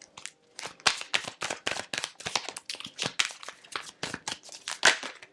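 Tarot cards being shuffled and handled by hand: a quick, irregular run of card snaps and flicks, with a louder snap near the end.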